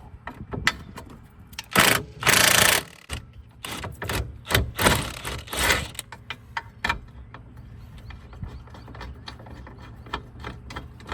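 Hand and power tools working a stubborn part out of a 1995 Honda Civic's rear suspension. There are several loud bursts of tool noise about 2 s in and again around 5 s, with metal clanks and clicks between and after them.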